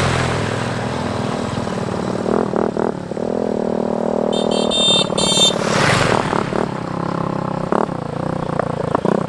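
Small motorcycles running along a gravel road and passing close by, engine pitch rising and falling as they go by, with one pass at the start and another about six seconds in. A brief high, rapidly pulsing sound about four to five seconds in.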